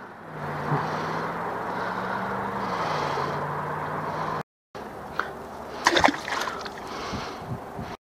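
River water running and gurgling, a steady rush with a faint low hum beneath it. After a short break, a few sharp clicks and knocks of handling sound over the water.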